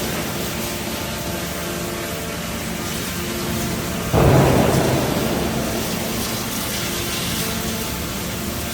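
Heavy open-die forging machinery in a steel works: a steady rumbling roar, with a sudden loud rumbling surge about four seconds in that dies away slowly over several seconds.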